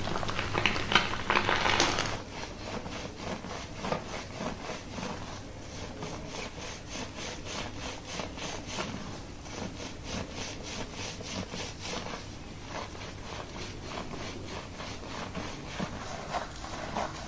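Fingers scrubbing a lathered scalp during a salon shampoo: an even run of rubbing, scratching strokes, about three a second. It is louder and harsher for the first two seconds.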